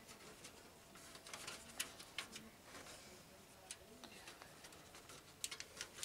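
Faint, scattered light clicks and taps of a metal I/O shield being handled and checked where it is pressed into the back of a PC case.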